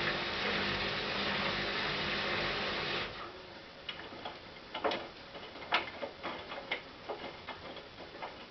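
Hotpoint NSWM 843C washing machine's inverter-motor drum turning with a steady whir, which stops abruptly about three seconds in. Irregular small clicks and ticks follow while the drum is at rest during the rinse.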